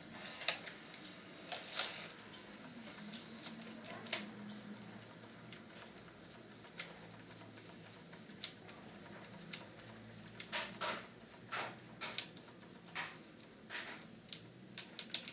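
Scattered light clicks and taps as a gloved hand handles small parts of an opened VCR tape deck mechanism, coming more often in the second half.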